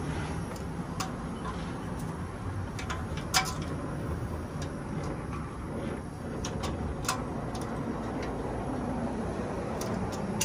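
Brazing torch flame hissing steadily as it heats the copper line joints on a refrigeration compressor, with scattered sharp ticks, the loudest about three and a half seconds in.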